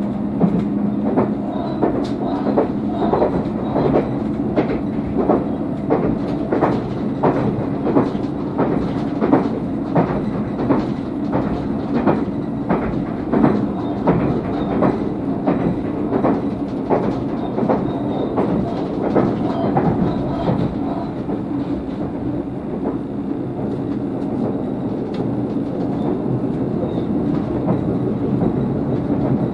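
Tobu 500 series Revaty electric train running, heard from on board: a steady running hum with a rhythmic clickety-clack of the wheels over rail joints. The clacks thin out and grow fainter about two-thirds of the way through.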